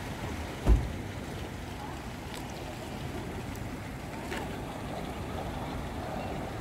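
Seaside wind and choppy water washing against a concrete seawall, a steady rushing noise, with one low thump about a second in. Faint voices come through near the middle and end.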